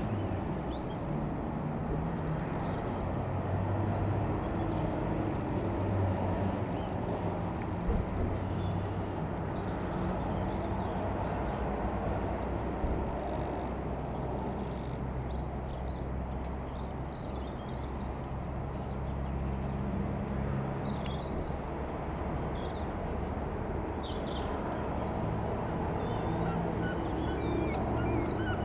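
Steady low drone of a light aircraft's piston engine running, with short bird chirps scattered over it.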